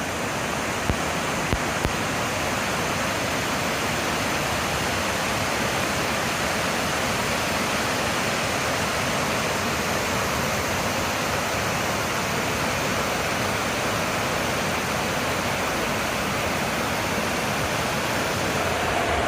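Steady rushing of flowing water, an even hiss with no change, with three short soft knocks between one and two seconds in.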